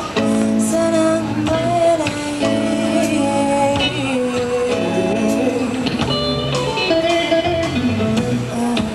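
Live music with guitar, played by a band at a sound check.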